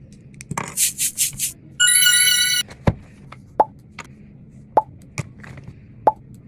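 Mouth-made sound effects: four quick hissing "tss" sounds, then a high-pitched squeal of about a second, then a series of single mouth pops spaced about a second apart.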